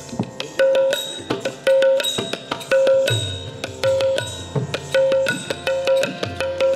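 Odissi dance accompaniment in an instrumental rhythmic passage: mardala drum strokes in a quick rhythm with manjira cymbals, and a short melodic note repeating about twice a second. There is no singing.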